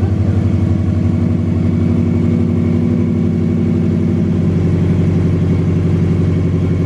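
Subaru Impreza GC8's flat-four engine idling steadily during warm-up with no air filter fitted, now running smoothly after a misfire was cured.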